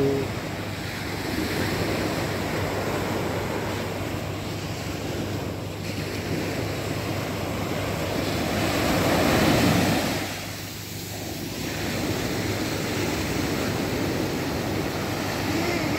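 Small ocean waves breaking and washing up a sandy beach, with wind on the microphone. One surge swells loudest a little past halfway, then briefly falls away.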